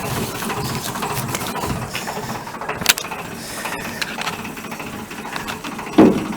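Engine of a century-old work barge running steadily. There is a sharp click about three seconds in and a short loud thump near the end.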